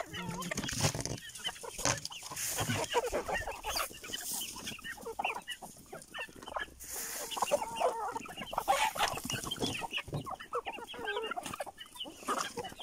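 A flock of hens and a rooster clucking busily as they peck at freshly thrown feed, with short bursts of rustling noise now and then.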